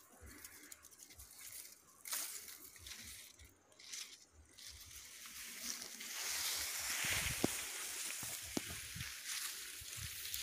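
Ripe rice plants rustling as someone pushes through the crop, with soft footfalls. The rustling grows louder and denser about halfway through.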